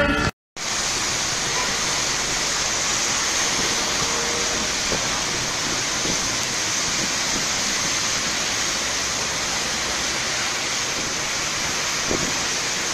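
Steady hiss of rain falling on a wet street, starting after a brief gap about half a second in.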